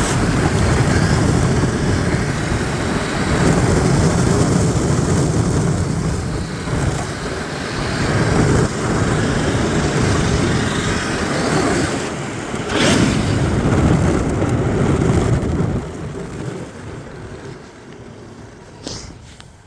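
Sled being towed across snow and ice, its runners giving a loud, rough rumble mixed with wind buffeting the microphone; it dies down about sixteen seconds in as the sled slows.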